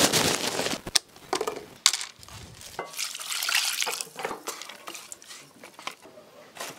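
A plastic bag rustles briefly, then come pot sounds: liquid splashing and bubbling in a non-stick pan, with scattered light clinks and knocks of utensils against it.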